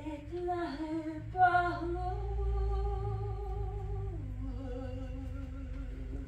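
A woman's unaccompanied wordless singing in long held notes: she rises to a higher note held for about two seconds, then drops about four seconds in to a lower note held with a slight waver.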